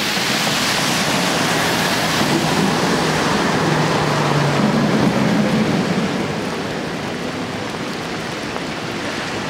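Street sound on a rain-soaked city street as a tram passes: a steady hiss of rain and wet-road noise, loudest in the first two seconds, with a low hum rising and fading about four to six seconds in.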